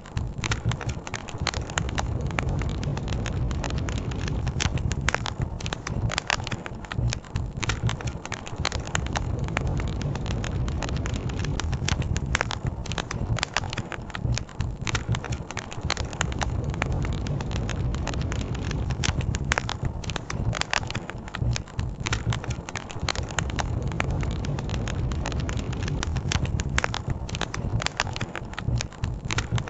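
Wood campfire crackling, with frequent irregular sharp pops and snaps, over a steady low rush of a flowing river.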